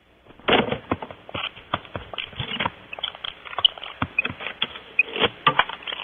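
Rapid, irregular scratching and crackling with sharp knocks in a barn owl nest box, starting suddenly about half a second in.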